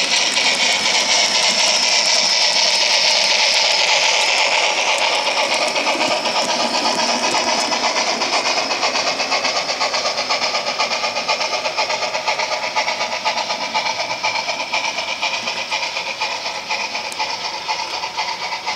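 Model freight train running along the layout track, a steady rolling noise that slowly fades as the train moves away.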